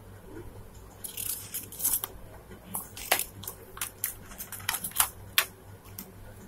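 Paper leaflet and cardboard phone-box packaging being handled: irregular rustling and crinkling of paper, with several sharp clicks and taps from the box's cardboard inner tray.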